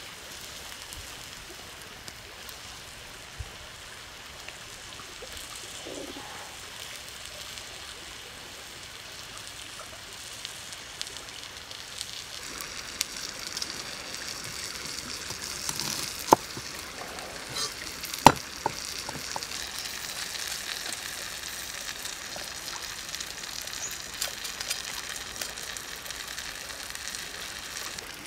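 Shrimp sizzling on a hot stone slab over a wood fire, a steady hiss that grows a little stronger partway through. Two sharp knocks come a little past halfway.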